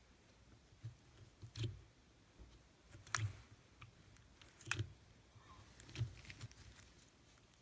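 Slime being squished and pressed by hand, making four sharp pops about a second and a half apart with fainter crackles between them.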